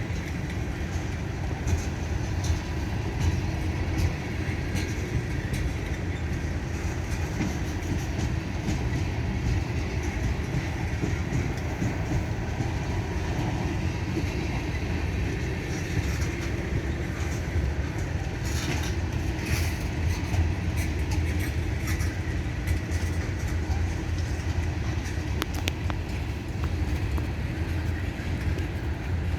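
Freight train cars rolling past slowly, at about 10 mph, a steady low rumble with the wheels clicking over the rail at irregular intervals.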